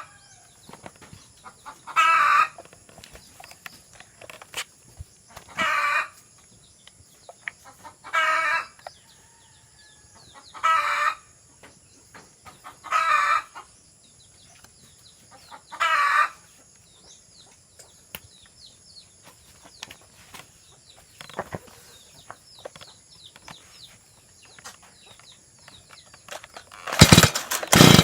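Stihl MS 170 chainsaw being pull-started again and again: six short, loud pulls on the starter cord, a few seconds apart. About a second before the end the engine catches and runs loudly.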